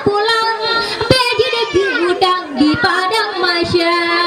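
A young girl singing into a microphone, her voice winding through a drawn-out melodic line and ending on a long held note.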